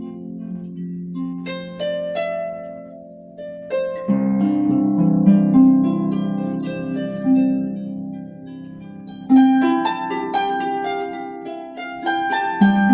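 Newly built harp playing a slow chord progression: chords of plucked strings struck together and left to ring out, a new chord every few seconds.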